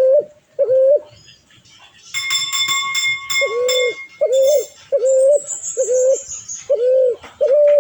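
A bird repeating short, level hooting coos at a steady pace, pausing for about a second and a half in the middle. During the pause a higher buzzing, ringing call sounds, and later a thin series of very high notes falls in pitch.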